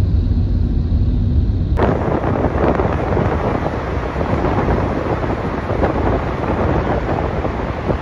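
Road and wind noise of a car driving at speed: a low rumble at first, then, about two seconds in, a sudden switch to a louder, brighter rush of wind and tyre noise in a road tunnel.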